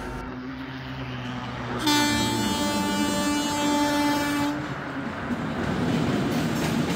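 Locomotive horn sounding one long steady blast of about two and a half seconds, starting about two seconds in, over the running rumble of a passing train, which cuts off suddenly at the end.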